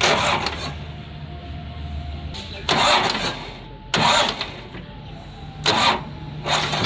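Fiat 480 tractor's diesel engine running with a steady low hum, broken by about five short, loud bursts of rushing noise.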